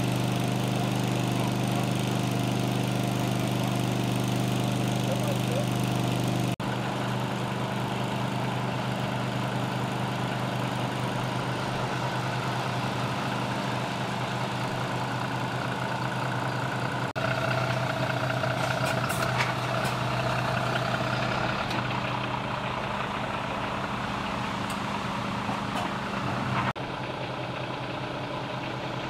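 Heavy lorry diesel engines idling steadily, with an abrupt change in the sound three times.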